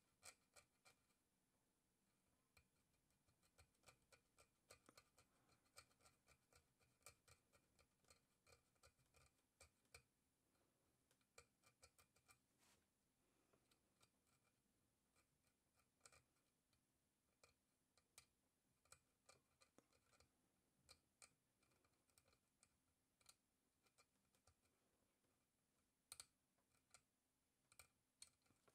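Faint, irregular ticks and scratches of a hand-held steel needle picking rock matrix away from a trilobite fossil, several small clicks a second with pauses between, and a few louder ticks near the end.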